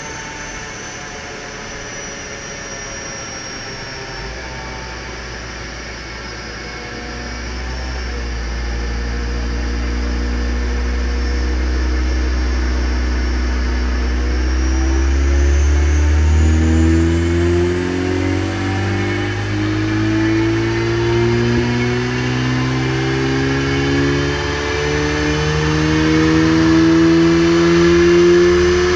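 Car engine and quad-pipe exhaust pulling under load on a rolling-road dyno, the note climbing slowly and steadily through the revs and growing louder over about twenty seconds.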